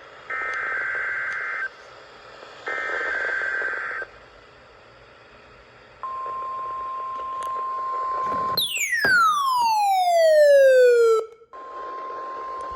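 NOAA Weather Radio test signal: two short warbling bursts of SAME digital header data, a short pause, then the steady 1050 Hz warning alarm tone from about halfway. About two-thirds in, the tone gives way to a loud falling electronic siren sweep lasting about three seconds, and then the steady tone resumes.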